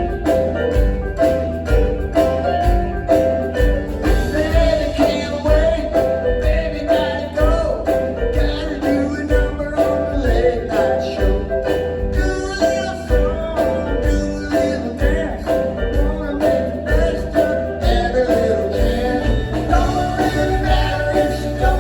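A rock band playing live: drums keeping a steady beat under bass and guitars in a bluesy mid-tempo song.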